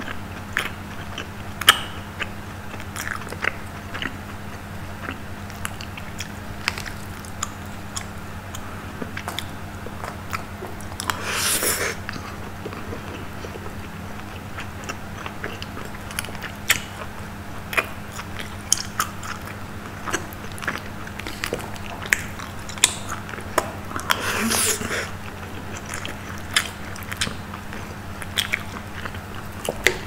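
Close-miked chewing and biting of a rice and rendang meal, with many short sharp clicks and two longer, noisier sounds about eleven and twenty-four seconds in. A steady low hum runs underneath.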